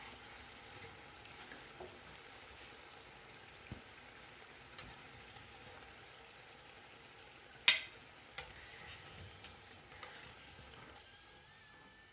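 Falafel patties sizzling faintly in shallow oil in a frying pan, fried golden brown and done. A metal slotted spatula scrapes and knocks against the pan as they are lifted out, with one sharp clack about eight seconds in and a lighter one just after.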